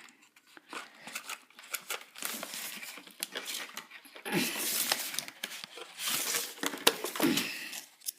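Plastic and cardboard toy packaging crinkling and rustling in bursts, with sharp clicks and snaps, as a toy is cut and pulled free of it.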